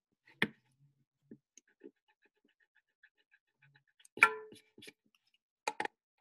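Scattered clicks and knocks over a video call, the sharpest about half a second in and about four seconds in, a quick pair near the end, with faint irregular ticking between them.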